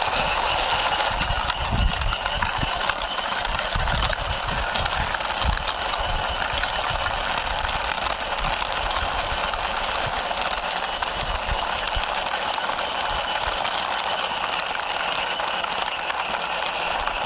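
A toy bus pushed along by hand, its wheels rolling and rattling steadily over the ground, with irregular low bumps.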